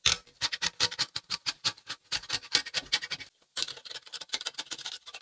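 Utility knife blade scraping excess dried marble glue off a glass sheet along a repaired crack, in quick short strokes of about six a second, with a brief pause about three seconds in.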